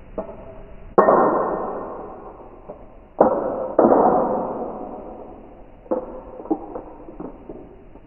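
A balisong (butterfly knife) being flipped and snapped shut: three loud metallic clacks of the handles and blade, about a second in and two close together a little past three seconds, each ringing out over a second or two. Then a few lighter clicks of the handles and latch near the end.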